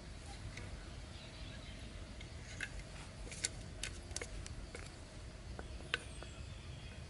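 Scattered light clicks and taps of hands handling an aluminium drink can, wooden stakes, a thin stick and string, over a faint steady background hiss.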